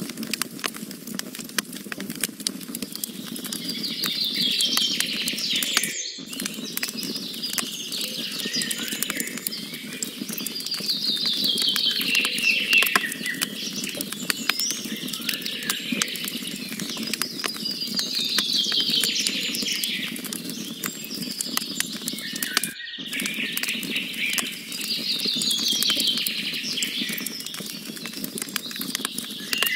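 Wood campfire crackling, with frequent sharp pops and snaps from burning logs over a steady low rush. A songbird repeats a short trilled, falling song about every seven seconds, four times. The sound cuts out briefly twice.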